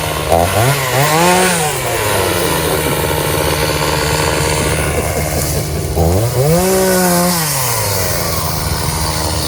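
Chainsaw engine running near idle and revved up twice, each rev rising sharply in pitch and dropping back after about a second and a half.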